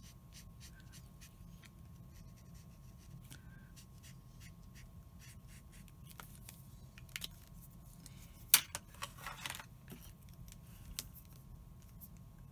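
Brush-tip marker being worked over stamped cardstock: faint scratching and small ticks as the tip strokes the paper, with one sharp click and a brief rustle about two-thirds of the way through, over a faint steady hum.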